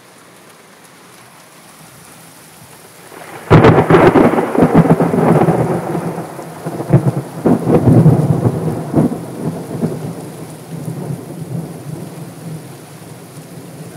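A close thunderclap breaks suddenly about three and a half seconds in: a string of sharp cracks, then rumbling that fades away over several seconds. Steady rain runs beneath it.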